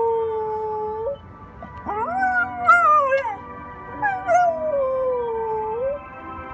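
Yellow Labrador retriever howling with its head raised, in reaction to a chime: a long falling howl that breaks off about a second in, then a rising, wavering howl, then a third howl that slides slowly down in pitch.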